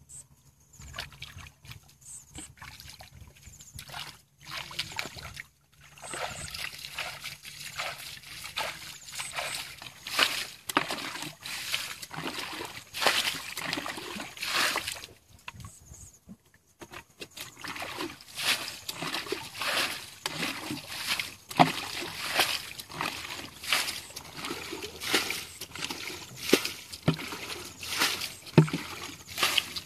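Shallow muddy water splashing and sloshing, with repeated splashes as water is scooped and poured out with a plastic bucket and feet move through the water. The splashes are few at first, then come in a steady run of about one a second.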